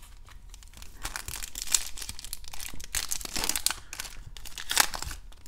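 Foil wrapper of a Topps Chrome trading-card pack crinkling and tearing as it is ripped open by hand, in irregular crackly bursts, the loudest near the end.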